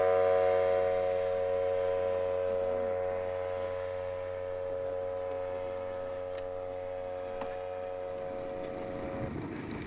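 Engine of an RC tow plane droning at a steady pitch as it tows a glider high overhead. The sound fades slowly as the plane draws away, then cuts off near the end.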